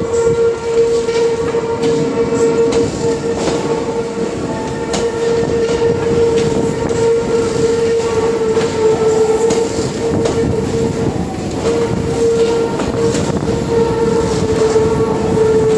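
Hankyu shunting locomotive moving maroon Hankyu railcars slowly through the yard, with a steady drone held throughout and scattered clicks of wheels over rail joints and points.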